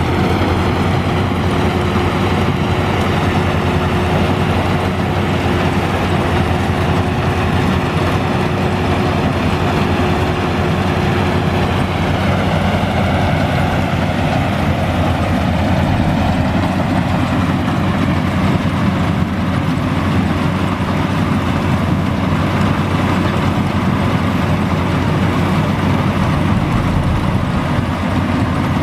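Combine harvester's diesel engine running steadily while working a muddy rice paddy, with a steady mechanical tone over it that stops about twelve seconds in.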